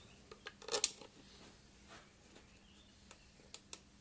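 Light clicks and taps of small metal and plastic mixer parts being handled and fitted by hand onto the drive hub, a quick cluster of clicks just under a second in and a few lighter ticks near the end.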